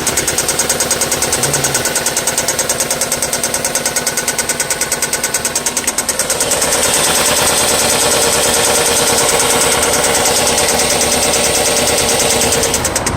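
Engine running with a rapid, even ticking or knocking. About halfway through it gets louder, with more hiss and a steady hum, then drops back near the end. The owner can't tell whether the noise is a valve tick or a rod knock.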